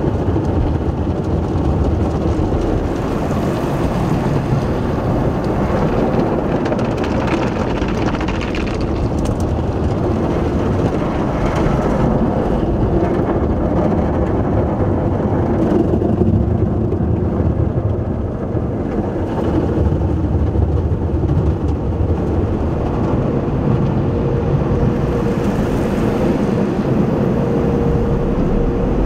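Automatic tunnel car wash heard from inside the car's cabin: cloth brushes scrubbing over the windshield and body while water and foam spray onto the car, a loud steady rumbling wash. A faint steady hum joins in over the last few seconds.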